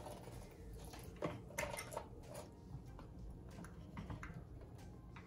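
Scattered light clicks and taps of small parts as a nut and washer are worked by hand onto the front wheel axle of a plastic Huffy toddler scooter.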